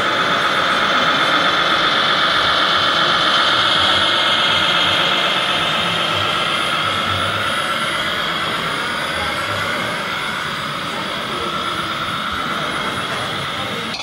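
Radio-controlled scale model trucks' small electric drive motors whining steadily at a high pitch, several tones wavering slowly up and down.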